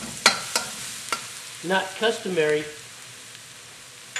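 Garlic sizzling in hot peanut oil in a pan, with a utensil stirring and clicking sharply against the pan several times in the first second or so.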